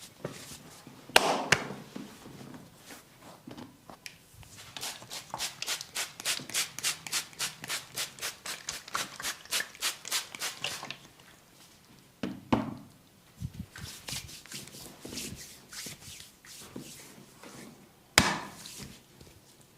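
Massage hand strikes on skin: a long run of rapid, even tapping at about four strokes a second, with a shorter run later and a few louder single strikes.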